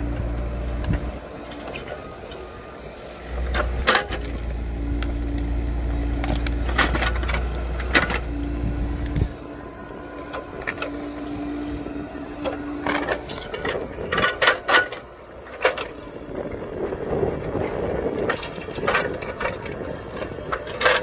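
Mini excavator's diesel engine working under hydraulic load as the bucket digs around a tree stump to cut through its roots. A heavy steady drone drops away about nine seconds in, and sharp knocks and clanks of the bucket and linkage striking soil and roots come through, thickest near the end.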